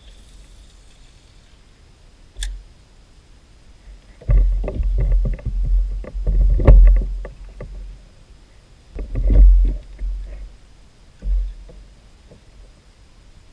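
Knocks, thuds and rattles from a fishing rod and reel being handled against a plastic kayak's rod holders and hull. They come in two loud clusters, about four and nine seconds in, with a single sharp click a little before and a last thud near the end.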